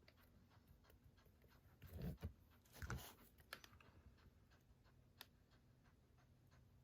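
Near silence with faint handling noise: a few soft knocks and rustles of Blu-ray cases being moved about two and three seconds in, and one small click a little after five seconds.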